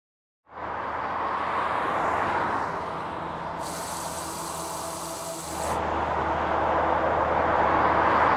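A rushing hiss of noise fades in from silence, eases a little in the middle, then builds again and cuts off at the end. A brief high shimmer sits over the middle and a low hum runs under the second half.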